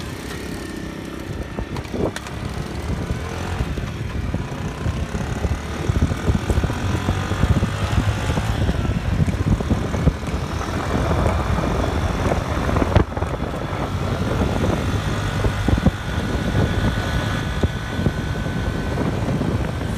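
Steady low rumble of a moving motor vehicle with wind rushing over the microphone.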